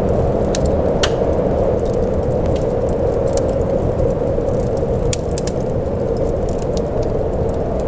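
Steady rain with scattered sharp crackling ticks over it.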